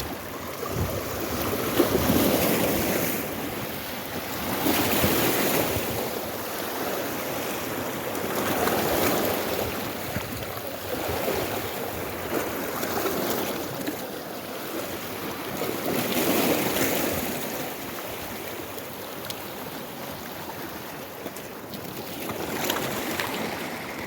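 Sea waves washing onto the beach, the surf swelling and fading every few seconds, with wind buffeting the microphone.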